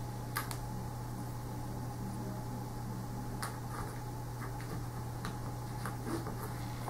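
Steady low room hum, with a few faint light clicks of cardboard wargame counters being set down and stacked on a mounted game map.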